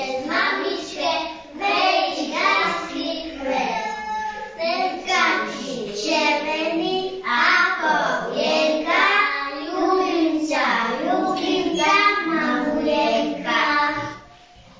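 Young children singing a song together without any clear accompaniment. The singing stops just before the end.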